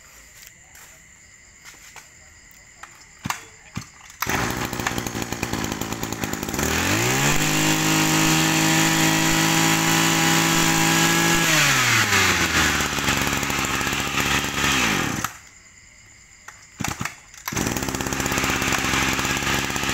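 Iseki brush cutter's Kawasaki TH23 two-stroke engine (23 cc) starts about four seconds in and is revved up to high speed for about four seconds. It then drops back to idle, cuts out about fifteen seconds in, and is running again a couple of seconds later.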